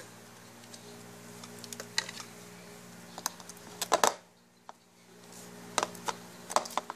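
Homemade slime being pressed and poked by fingers in a plastic bowl, giving scattered soft clicks and pops, loudest about four seconds in, over a steady low hum.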